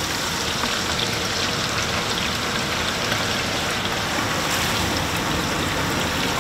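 Chunks of wild pork just dropped into hot oil, sizzling steadily as they start to fry into chicharron.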